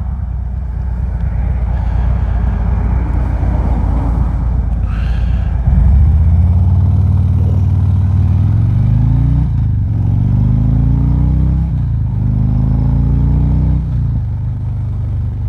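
2019 Harley-Davidson Ultra Limited's V-twin engine accelerating through the gears. From about six seconds in the engine note rises three times, dropping back at each upshift, over a rumble of wind noise. Heard from a lapel mic inside a full-face helmet with the visor down.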